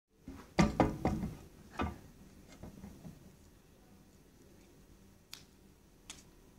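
A quick cluster of knocks and clicks about half a second to a second and a half in, another knock near two seconds, then two fainter, sharp clicks later.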